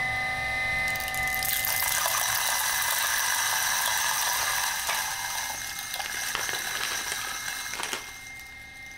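Timemore Sculptor 078 78 mm flat-burr electric coffee grinder running with a steady high "whirly" motor whine. Coffee beans grinding through it add a loud rushing crackle from about a second and a half in, which dies away around eight seconds in, leaving the motor spinning.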